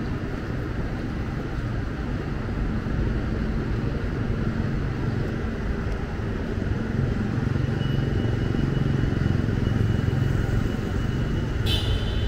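Street traffic: a steady rumble of vehicle engines and tyres that grows louder in the second half as traffic passes closer. A thin faint high tone runs through the later part, and a short sharp sound comes near the end.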